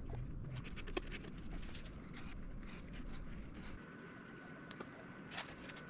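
Faint, scattered clicks, taps and scraping from hands working plastic quick-grip bar clamps on a balsa wood box, with a sharp click about a second in and another near the end. A faint steady high tone joins about halfway through.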